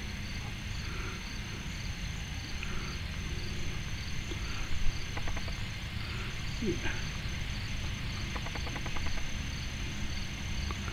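Crickets chirping steadily in a regular pulsed pattern over a constant low rumble, with a brief louder sound about five seconds in.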